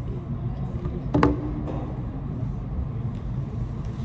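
Low steady background rumble, with a single sharp knock about a second in as a phone is set down on the tabletop.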